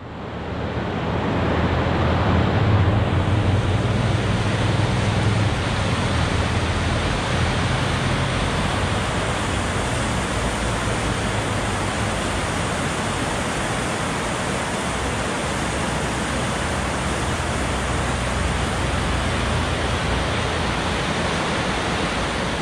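Steady rush of water from whitewater river rapids, fading in over the first couple of seconds.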